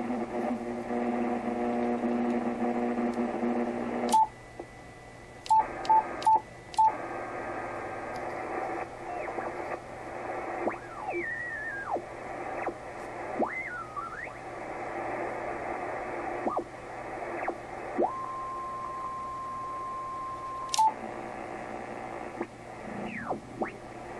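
HF transceiver's receiver audio as the tuning dial is swept across the bands: static with whistles that slide in pitch as signals are tuned past, and a steady carrier tone for a few seconds. Short clicks with keypress beeps sound five times about four to seven seconds in, and once more near the end.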